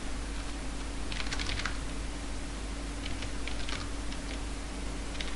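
Typing on a computer keyboard: a quick run of keystrokes about a second in, then a few scattered keystrokes, over a steady low hum and hiss.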